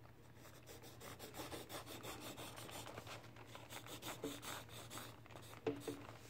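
Pencil scratching on paper in quick repeated strokes, with one brief louder sound near the end.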